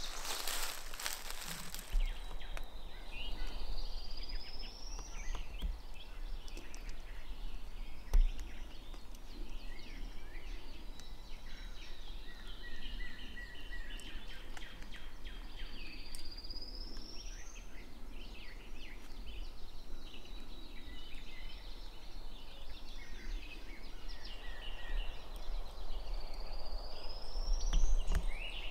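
Songbirds singing in open woods: a clear, upward-slurred whistle repeated three times about ten seconds apart, over scattered chirps of other birds. Beneath it runs a low rumble, with a brief rustle at the start and a single thump about eight seconds in.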